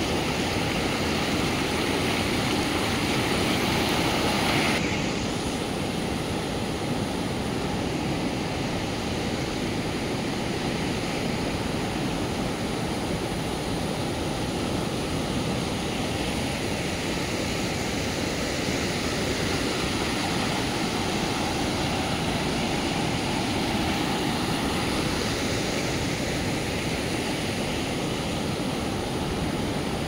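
A swollen river rushing and churning over rocks in a steady, continuous wash of water noise. It is a little louder for the first five seconds.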